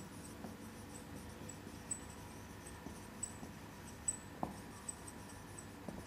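Faint squeaks and taps of a marker pen writing on a whiteboard: a handful of short strokes, with one slightly louder squeak about two-thirds of the way through.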